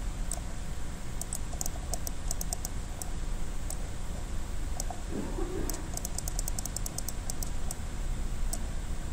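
Light, quick computer clicks in scattered runs, the densest a rapid string of about a dozen clicks around two-thirds of the way through, over a steady low room rumble.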